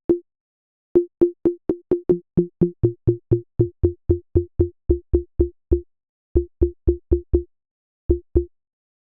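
Short synthesizer blips from a Bitwig Poly Grid patch, triggered over and over about four times a second. Each is a click followed by a brief steady tone. A lower tone joins about two seconds in, and the blips stop shortly before the end. These are test notes at an early stage of designing a water-drop sound.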